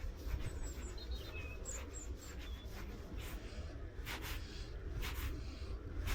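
Outdoor riverside sound: a steady low rumble, faint small bird chirps in the first two seconds or so, and a few short brushing noises in the second half, two of them close together twice.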